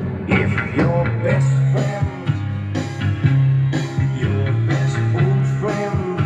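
Rock music playing, with singing over guitar and a steady bass line.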